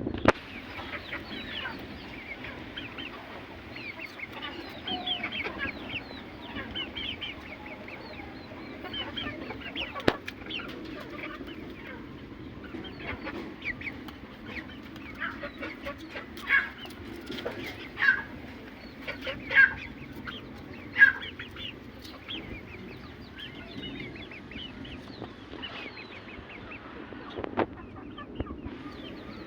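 Aseel chickens clucking and calling, many short calls overlapping, with several louder calls standing out past the middle.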